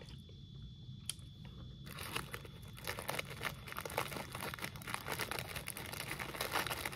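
Packaging crinkling and rustling as crackers are handled, in dense irregular crackles from about two seconds in, after a single click about a second in.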